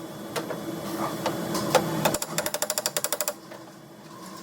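Sheet-metal quarter panel being worked with a body-repair flip (slapper) against a dolly held behind it. A few separate metallic knocks come first, then a fast run of about a dozen light strikes a second lasting about a second, drawing out the low areas of the panel.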